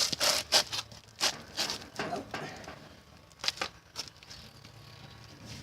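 Short, irregular metal scrapes and clicks as a rusted leaf-spring U-bolt nut, just heated with an induction heater and cracked free, is turned loose by hand. The scrapes come in quick bunches for the first few seconds, then thin out.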